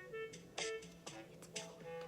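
Background music: an upbeat tune of short plucked or bowed notes over light percussion ticks.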